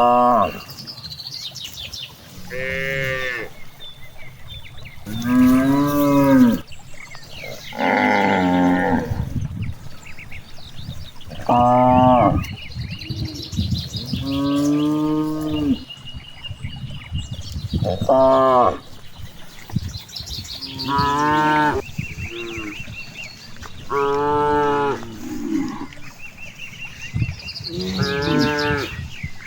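Cattle mooing again and again: about ten separate moos, each lasting a second or so, some higher-pitched than others.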